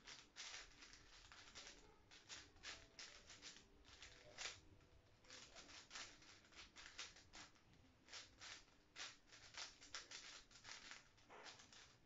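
5x5 plastic puzzle cube being turned quickly by hand: a fast, irregular run of light plastic clicks and clacks as its layers snap round.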